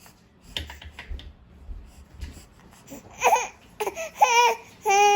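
Six-month-old baby squealing, three loud high-pitched vocalisations in the last two seconds, the middle one wavering up and down and the last held steady. Before them come a few light clicks and taps.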